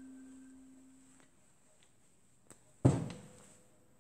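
A struck metal part's ringing tone fading out over the first second, then a single sharp knock of metal on the steel workbench top about three seconds in.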